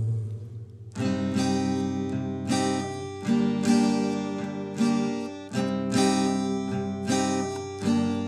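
Acoustic guitar strumming chords in an instrumental gap of a song. The strokes start about a second in and come in a steady rhythm, roughly one or two a second, each chord ringing on. The tail of a held sung note fades out just before.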